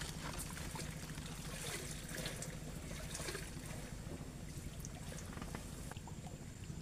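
Small hooked fish splashing and flicking at the water's surface as it is drawn in on the line, with water trickling, over a steady low hum.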